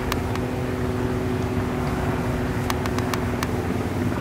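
Bombardier CRJ-900 regional jet climbing out just after liftoff, its two rear-mounted GE CF34 turbofans at takeoff thrust: a steady jet roar with a low hum. A few sharp clicks, mostly about three seconds in.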